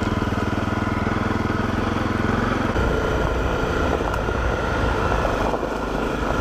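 Honda CRF250L's single-cylinder four-stroke engine running as the dual-sport bike rides along a dirt road. Its even note turns rougher and deeper about three seconds in.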